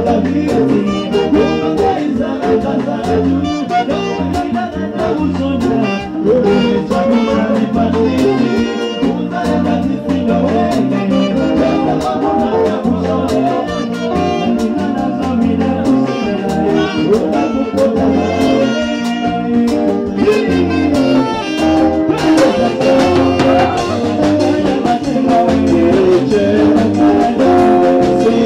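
Live band music: bass guitar and drum kit keeping a steady groove under saxophone and trumpet, with a man singing into a microphone.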